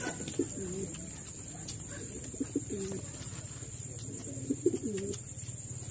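A bird gives low calls in three short phrases about two seconds apart, over a steady high-pitched hum.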